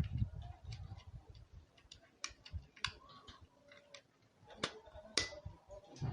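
Scattered sharp clicks and small knocks from a Yashica MF-2 Super DX film camera being handled, about half a dozen spread over a few seconds. A low rumble of handling noise runs through the first second.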